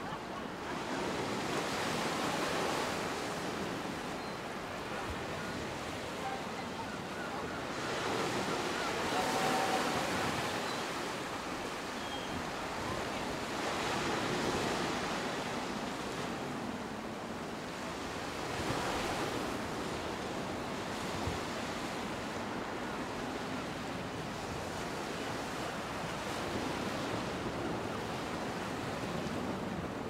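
Rough sea surf breaking in gale-force wind, the roar of the waves swelling and falling back several times, loudest about nine seconds in. Wind buffets the microphone throughout.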